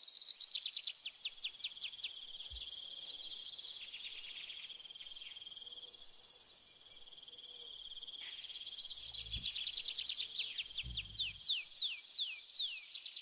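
High-pitched forest animal calls: a rapid train of short falling chirps, several a second, that dies away about four seconds in. A steady high hiss continues under it, and the chirping returns near the end as a slower series of longer falling notes.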